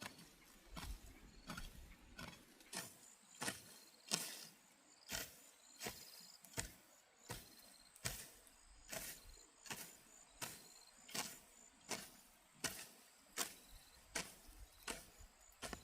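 Steady, rhythmic blows of a hand tool, about three every two seconds, each a sharp strike, with faint high chirping in the background.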